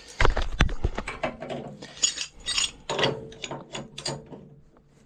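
Wrench working a gas line fitting as it is tightened: metal clicking and scraping, with a cluster of sharp clicks in the first second, then irregular clicks and scrapes that fade near the end.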